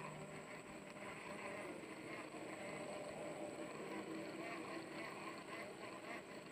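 Faint steady outdoor background noise with a low motor-like hum and a thin, high, steady tone.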